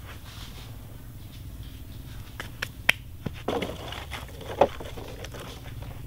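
A hand scraping loose sand, then several sharp clicks and crackly rustles as a plastic bottle is picked up and handled, the loudest clicks about three and about four and a half seconds in.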